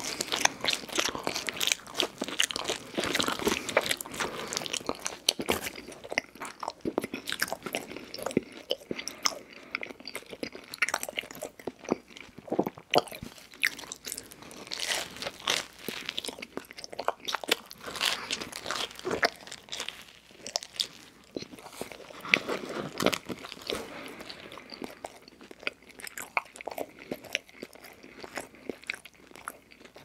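Close-miked mouth sounds of a person biting and chewing cheese pizza: crunching crust with many small clicks and smacks, busiest in the first half and thinning out toward the end.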